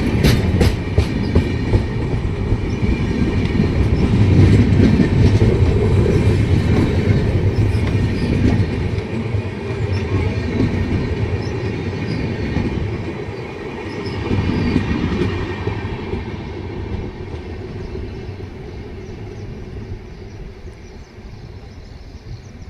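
Passenger train coaches rolling along the rails, wheels clacking over rail joints at first, then a steady rumble that slowly fades as the arriving train slows.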